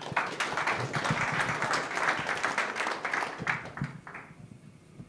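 Audience applauding, a dense patter of many claps that tails off about four seconds in.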